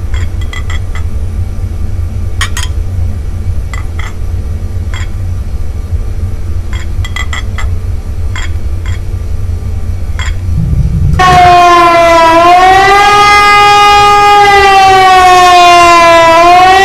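Steady low rumble with scattered light clinks of glasses and dishes being handled on a table. About eleven seconds in it cuts suddenly to a loud siren-like wail with many overtones, its pitch slowly dipping and rising again.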